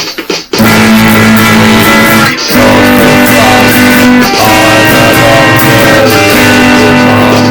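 Music: after a few drum hits, loud sustained guitar chords over a steady bass come in about half a second in, with a brief break a little after two seconds.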